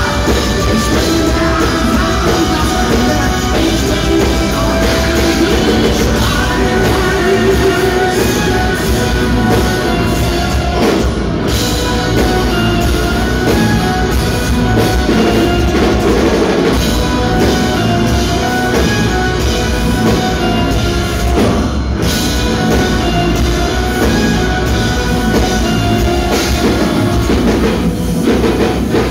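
A German folk-metal band playing live: heavy rock drums, electric guitars and bass, with a violin and a sung vocal line. It is heard loud and dense from within the audience.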